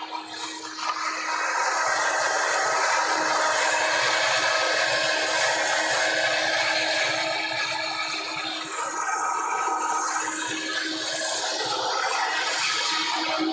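Vitamix blender running on high speed, grinding soybeans with water into soy milk. It gets louder about a second in, then runs as a steady whirring grind with a constant hum.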